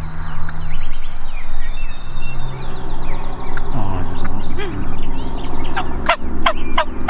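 Wild turkey toms gobbling, one rattling gobble about midway, followed by three short sharp calls near the end, over a steady low hum.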